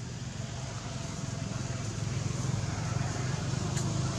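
A steady low engine hum, growing slowly louder.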